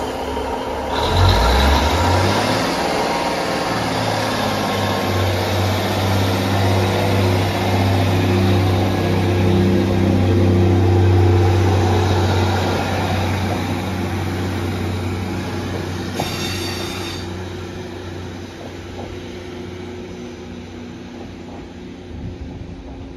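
Northern Class 150 Sprinter diesel multiple unit 150275 pulling away from a station platform. Its underfloor diesel engines run under power with a steady low engine note that builds about a second in, is loudest in the first half, and then fades as the train moves off.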